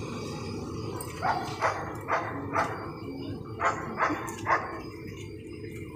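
A dog barking: about seven short barks in quick twos and threes, stopping shortly before the end.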